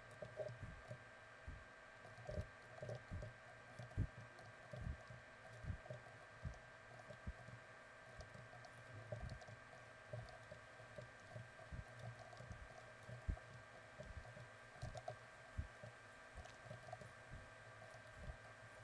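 Faint, irregular clicks and taps of a computer keyboard and mouse as shortcut keys and buttons are pressed, over a steady electrical hum from the recording setup.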